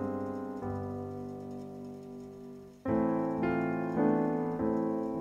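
Background piano music: soft held chords that fade a little, then a louder run of chords starting about three seconds in.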